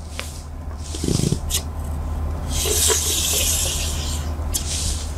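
Chalk scraping along a chalkboard as straight lines are drawn against a wooden set square: a few short scratchy strokes, then one long stroke of about two seconds. A dull knock about a second in, with a few light taps.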